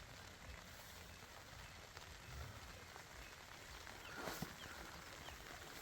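Faint, steady rain falling, with a few scattered drip-like ticks and a soft knock about four seconds in.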